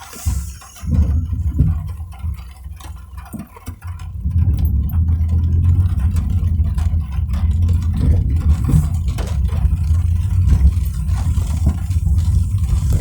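Car driving in the rain: a steady low rumble of engine and tyres that grows louder about four seconds in and then holds, with scattered small ticks over it.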